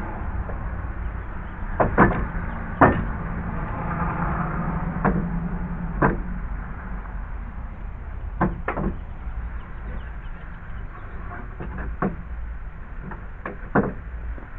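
Scattered sharp knocks and clunks of boards and tools being handled during deck repair work, about ten in all, the loudest a pair about two and three seconds in. A steady low rumble lies underneath, with a brief hum in the middle.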